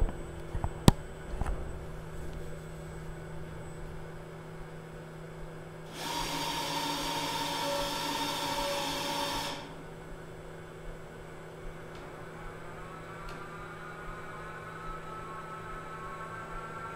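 Motorised equipment in a particle-therapy treatment room. A steady electrical hum runs throughout. A whirring motor sound with a whine in it runs from about six to nine and a half seconds and then stops abruptly, and a faint rising whine builds from about twelve seconds on.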